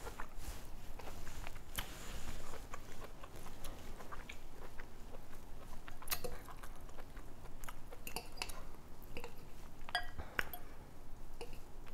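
A person chewing a mouthful of salad. A metal fork clinks and scrapes against a glass bowl about six seconds in and again near the end, the glass ringing briefly at the last strike.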